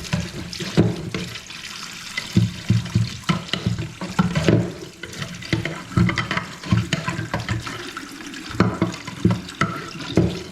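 Bathroom faucet running into a sink whose pop-up drain is packed with debris, the water splashing irregularly as it backs up and works slowly down the drain.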